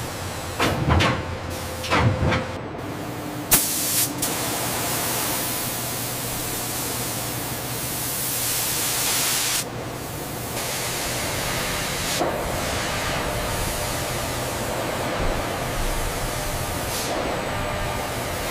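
Factory machinery: two short falling whirs about one and two seconds in and a sharp clank a little later, then steady hissing that breaks off briefly near ten seconds and comes back.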